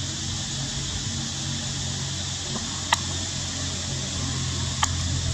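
Steady background hum and hiss, with two short sharp clicks, about three seconds and nearly five seconds in.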